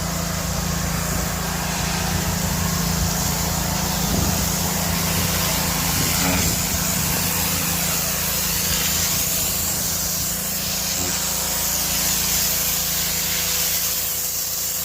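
Pressure washer running steadily, its pump humming low and even under the high hiss of the water jet.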